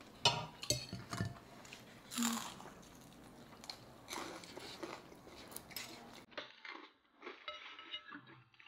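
Metal forks clinking and scraping on ceramic plates as a plate of fried rice vermicelli is eaten, with a few sharp clinks in the first couple of seconds, along with chewing.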